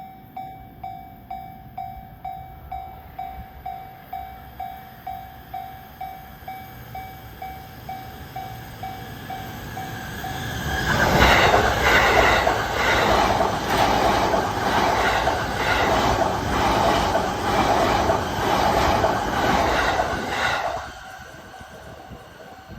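Japanese level-crossing warning bell ringing in a steady run of dings, about two a second. About ten seconds in, a Keihin-Tohoku Line electric commuter train passes through the crossing for about ten seconds, its wheels clattering rhythmically over the rail joints, then the sound drops away suddenly.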